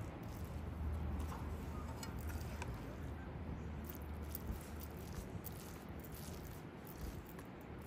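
A metal spoon scooping minced-meat filling and spreading it over flatbread on a metal tray: soft scrapes, squishes and small clicks. A low rumble runs underneath, stronger in the first half.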